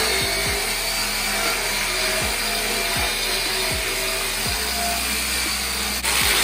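A power tool grinding steadily on steel leaf springs, likely for cleaning, heard as a dense hiss. Background music with a deep, thudding beat plays underneath, and the sound breaks briefly near the end.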